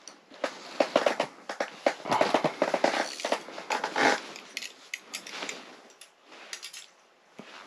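Close handling noise: a dense run of crackling clicks and rustles as an ice-fishing rod and spinning reel are handled. It is thickest for the first four seconds, then thins to scattered clicks.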